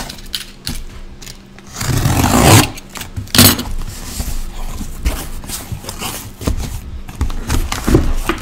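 Sealed cardboard case being opened by hand: a long, loud rip of tape or cardboard about two seconds in and a shorter one soon after, then the flaps scraping and scuffing as they are folded back.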